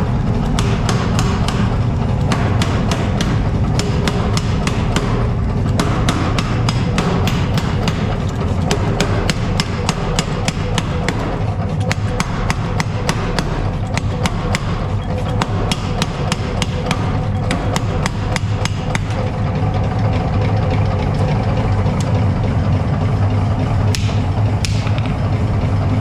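Hammer striking steel on an anvil in quick, regular blows, about four a second, over a steady low hum.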